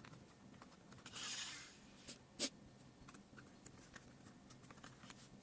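Faint handling of small toy-car parts as rubber tyres are fitted onto the wheels. A soft rubbing sound about a second in, then two light clicks, the second the sharper, and a few faint ticks.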